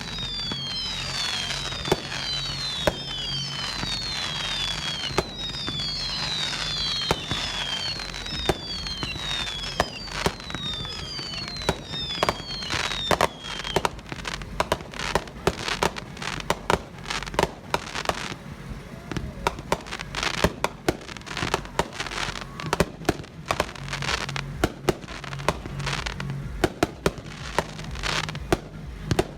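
Consumer aerial fireworks cakes firing: a run of falling whistles, one after another, for about the first half, mixed with sharp bangs. In the second half the whistles stop and rapid bangs and crackles come thick and fast.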